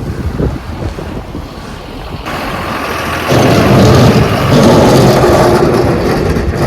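Large John Deere snow-clearing tractor's diesel engine, growing louder about two seconds in and running loudly close by from about three seconds on. Wind on the microphone in the first seconds.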